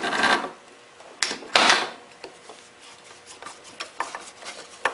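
Phillips screwdriver turning a screw loose on a small engine: a few short metal scrapes in the first two seconds, then faint small clicks as the driver turns.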